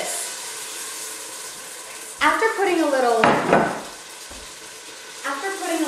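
Hot vegetable oil sizzling steadily as egg-roll-wrapped chile rellenos fry in a pot on the stove. A voice cuts in briefly about two seconds in.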